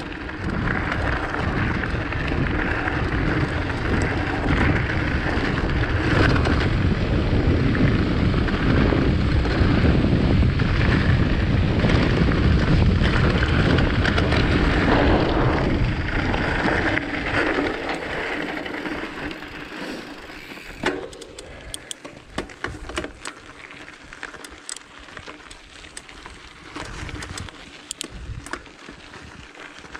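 Rockrider mountain bike ridden over a rough trail: wind rush and the rattle of the bike over stones, loud for the first eighteen seconds or so, then quieter with scattered clicks and knocks.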